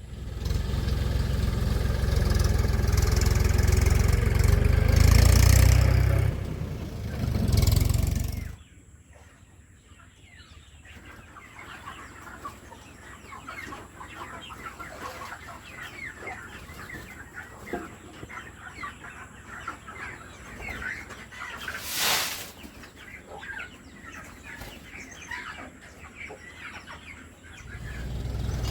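Desi chickens clucking and peeping, many short calls overlapping. A loud low rumble covers the first eight seconds or so, and there is one sharp, loud sound about two-thirds of the way through.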